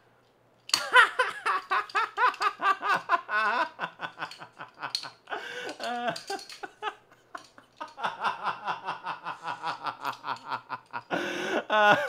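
A woman laughing hard in long runs of rapid pulses, starting about a second in, with a few short breaks.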